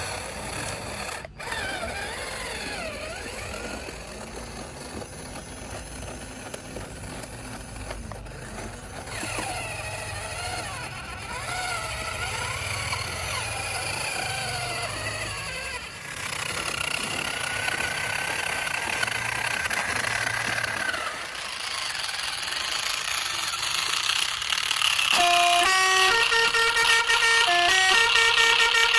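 Radio-controlled trucks' electronic sound modules: a low engine rumble under wavering siren tones that rise and fall, then, near the end, a loud multi-note horn playing a stepped tune.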